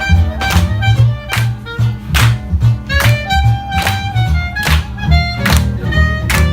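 Live swing band playing up-tempo swing music: strummed guitar over a bass line with a steady, even beat.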